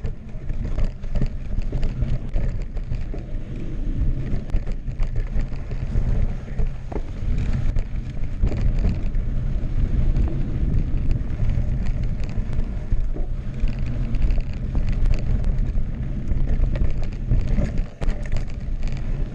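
Mountain bike (2016 Specialized Enduro Expert Carbon, tubeless tyres) rolling fast down a dry dirt singletrack: a steady rumble of tyres on dirt and wind on the microphone, with scattered small clicks and rattles as it passes over rocks and roots.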